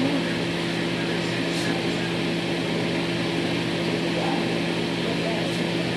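Steady whirring hum of a small motor, with a constant low tone and even hiss that does not change.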